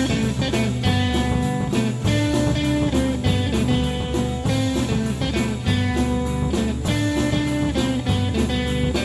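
Instrumental passage of a 1970s Greek rock band recording, with no vocals: guitar lines over bass and a drum kit keeping a steady beat.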